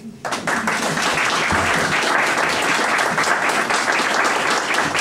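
Audience applause breaking out suddenly about a third of a second in, many hands clapping steadily after a moment of quiet.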